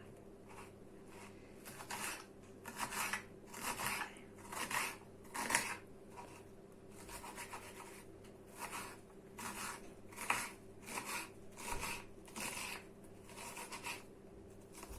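Knife slicing a dry onion into small cubes: a run of crisp cuts, about one or two a second, unevenly spaced.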